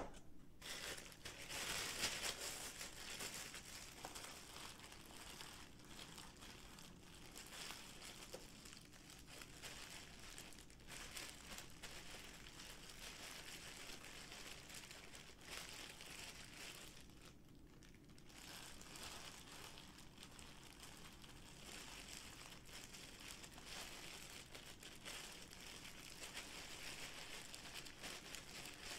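Thin disposable plastic gloves crinkling faintly and irregularly as gloved hands pull them on and squeeze seasoned rice into rice balls.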